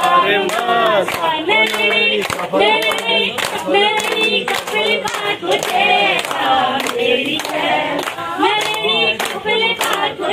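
A group of women singing an Uttarakhandi Holi folk song in unison, keeping time with steady rhythmic hand claps.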